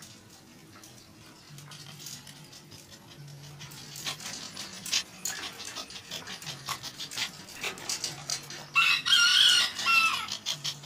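American Eskimo dog panting close by, in quick breathy strokes that grow louder from about four seconds in. About nine seconds in, a rooster crows once for about a second and a half, the loudest sound.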